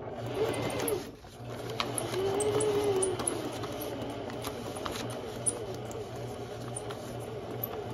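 Electric household sewing machine stitching slowly through paper without thread, its motor hum rising and falling in pitch as the speed changes on a tight curve. The needle ticks steadily, with a brief pause about a second in before the machine speeds up again.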